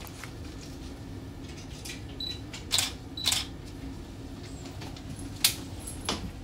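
Canon EOS digital SLR camera taking four shots, with sharp shutter clicks and a short high focus-confirmation beep just before the first two, over a low steady hum.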